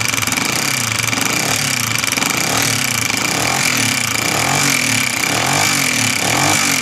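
Honda CG125's single-cylinder pushrod four-stroke engine running rough and clattery, its note rising and falling about once a second as the throttle is opened a little, with a steady high whine. The mechanic puts the noise down to a worn cam sprocket, cam and rockers, and a noisy piston pin and seized piston from a poorly working oil pump.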